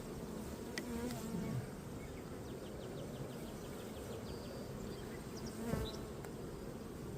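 Honeybees buzzing in a steady hum over an open hive during a frame inspection, with brief louder swells about a second in and again near six seconds.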